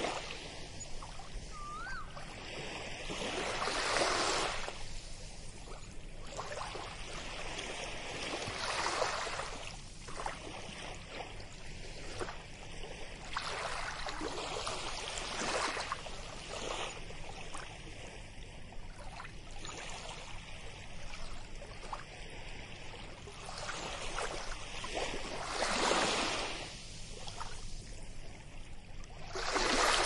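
Small waves lapping and washing up onto a sandy shore from calm, shallow water. Each wash swells and eases every four to six seconds.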